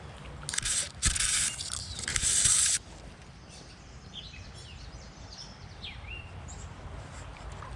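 Fly reel's click-and-pawl drag buzzing in three quick pulls as line is stripped off the reel, with small birds chirping afterwards.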